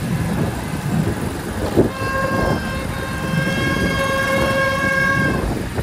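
A vehicle horn sounds one long, steady blast from about two seconds in until just before the end, over a low background rumble, with a sharp knock just before the horn starts.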